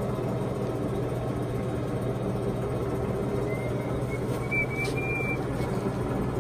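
Poreba TPK80 engine lathe running with a steady mechanical hum while its cross slide is power-fed. A faint high whine comes in about halfway through, rising slightly, and lasts a couple of seconds.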